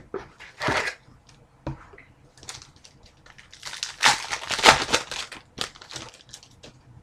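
Foil trading-card pack wrapper crinkling and tearing as a pack is opened, loudest about halfway through, with short rustles of cards being handled around it.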